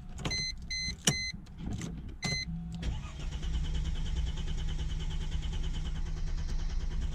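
A few short electronic dashboard chimes, then the Chrysler Crossfire SRT6's starter cranking its supercharged V6 steadily for about four seconds without it catching. This is a no-start, which the owner guesses is a flooded engine from a leaking fuel injector.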